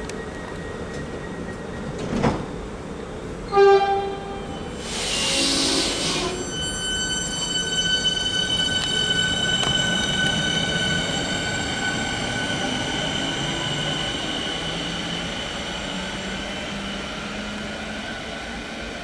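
Metro suburban electric train sounding a short horn toot, followed by a brief hiss of air. A steady high-pitched motor whine and rumble then slowly fade.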